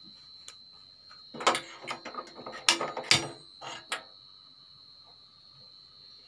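An aluminium kadai clatters onto the steel burner grate of a gas stove. About a second later come a few sharp clicks from a hand-held spark gas lighter as the burner is lit.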